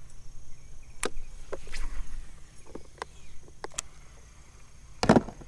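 Scattered sharp clicks and taps from handling a baitcasting rod and reel on a boat, with one louder knock near the end.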